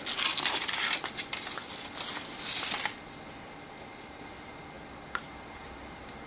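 Foil wrapper on a chocolate egg crinkling and tearing as it is peeled off by hand, stopping about three seconds in, with a single faint click later on.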